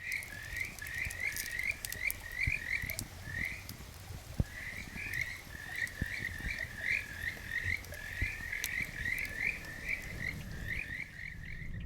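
Frogs calling: a rapid series of short croaks, several a second, broken by a brief pause about four seconds in.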